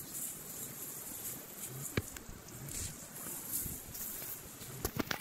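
Rustling of leafy plants and soft footsteps on soil as someone pushes through a weedy plot, with a sharp click about two seconds in and three quick clicks near the end.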